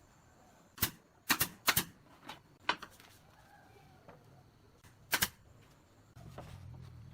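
Irregular sharp wooden knocks and clacks: a cluster between about one and three seconds in, and a quick double knock about five seconds in. A low hum comes in near the end.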